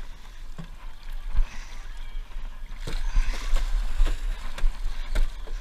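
Water splashing and sloshing against the side of a fishing boat over a low steady rumble, with a few sharp knocks.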